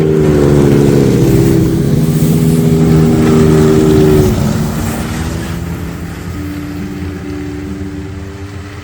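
Snowmobile engine running at speed, loudest for the first four seconds and then easing off, with background music underneath.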